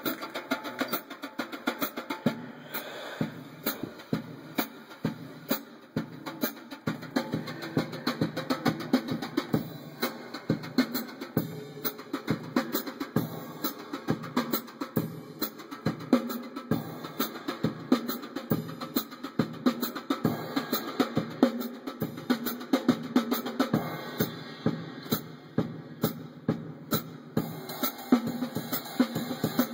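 A drum-heavy music track playing through the car's aftermarket Rockford Fosgate component speakers and subwoofers, heard inside the cabin. Quick, regular drum hits run throughout.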